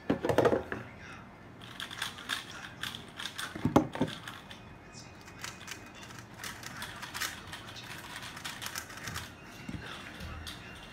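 Clicks and rattles of hands handling plastic speedcubes and the cardboard boxes that cover them, with two louder knocks just after the start and about four seconds in.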